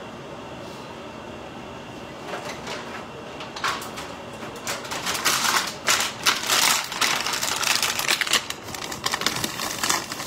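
Clear plastic bag crinkling and rustling as it is handled, in quick irregular crackles that start about three and a half seconds in and grow busier and louder toward the end.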